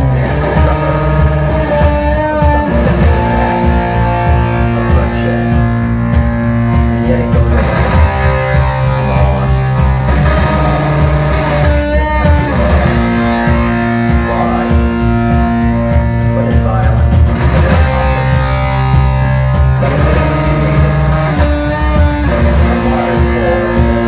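Rock band playing live: electric guitar and bass holding long, sustained chords that change every few seconds.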